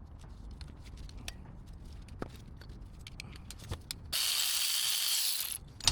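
Irregular light clicks and taps of a hand wrench or ratchet on a 16 mm pulley bolt, then a loud hiss lasting about a second and a half near the end that cuts off suddenly.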